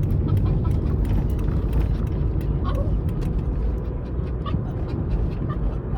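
Steady low road noise inside a moving car's cabin, with a few short, faint whimpers from a dog.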